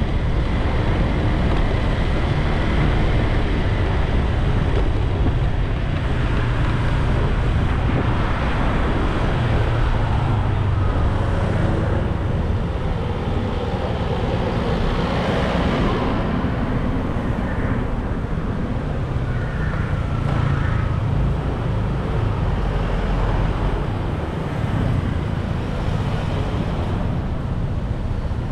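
Steady wind rumble on the microphone and road noise from riding a motorbike through town traffic, with cars moving alongside. A short faint falling tone sounds about two-thirds of the way in.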